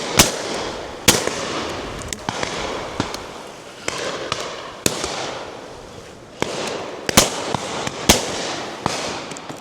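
Shotguns firing at driven pheasants: a string of sharp reports of uneven loudness from several guns, roughly one a second and sometimes two close together, each trailing off in a rolling echo.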